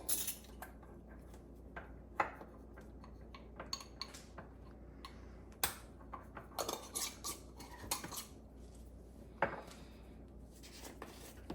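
Scattered light clinks and clicks of metal utensils and dishes, handled at irregular moments with small bunches of clinks now and then, as spices are measured out by the teaspoon for a batter.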